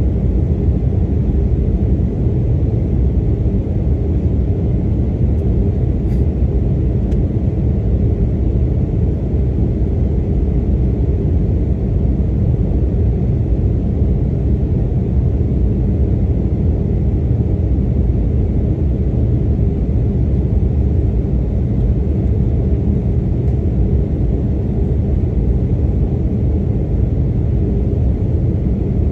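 Steady low rumble of an airliner's engines and airflow, heard inside the passenger cabin.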